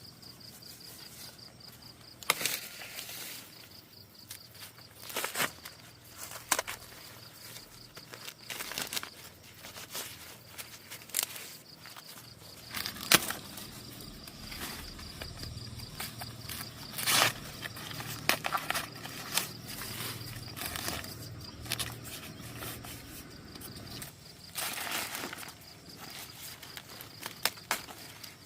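Footsteps and irregular snaps and crackles, over a faint steady high insect trill; a low hum joins in the middle.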